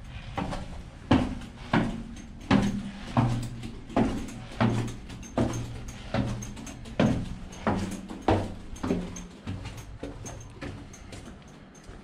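A steady series of sharp knocks, about three every two seconds, over a low steady hum. The knocks fade over the last few seconds.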